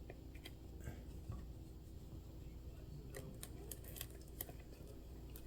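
Faint scattered clicks and light taps from small parts and a tool being handled on an RC car's axle, with a quick cluster of them about three seconds in.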